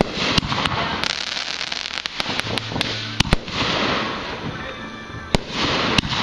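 Aerial fireworks shells bursting overhead: a run of sharp bangs and crackles, with a quick cluster of cracks in the first half and single loud reports near the end.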